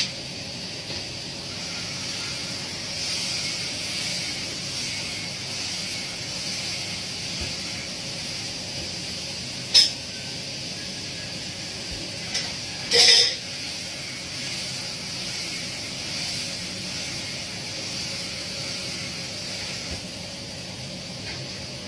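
Stir-fry sizzling in a wok over a gas burner in an automatic cooking machine: a steady hiss. Two sharp metal clanks come about ten and thirteen seconds in.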